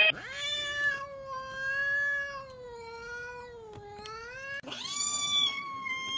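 A cat yowling: one long, drawn-out wavering call lasting over four seconds, then after a brief break a second, higher-pitched yowl starting near the end.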